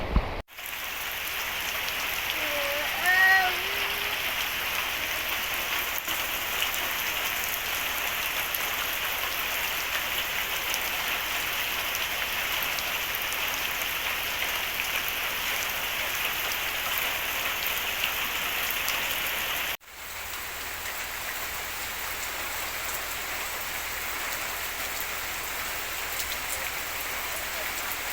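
Steady rain falling, an even hiss of rain on surfaces that drops out briefly twice. About three seconds in, a short call with a wavering pitch sounds over the rain.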